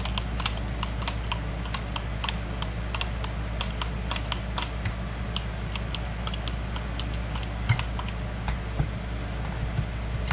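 Four-barrel carburetor's throttle linkage worked open and closed by hand, the throttle blades and return springs snapping back with many quick, irregular clicks. The throttle shaft has just been sprayed with lubricant to stop it sticking and squeaking, and it now sounds better.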